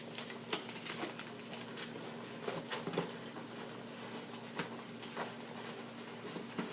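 Packing peanuts and a cardboard box being handled: scattered light rustles and clicks as hands dig through the loose fill.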